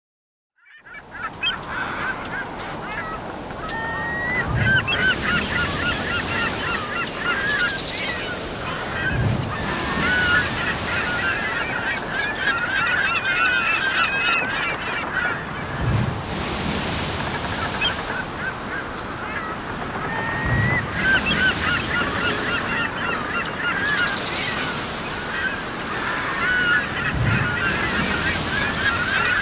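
A large flock of birds calling, a dense chorus of many overlapping short honking cries. It starts abruptly about a second in, with a low rushing swell about every five seconds beneath it.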